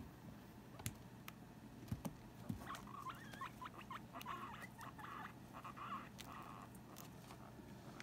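Guinea pigs squabbling: a run of short squeaky calls, some rising and falling, for a few seconds in the middle. A few sharp clicks are scattered around them.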